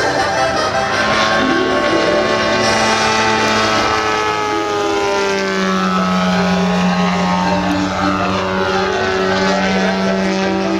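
Engine and propeller of a 41%-scale Krill Extra 330SC model aerobatic plane running in flight. The engine note is steady, then shifts lower and stronger about halfway through.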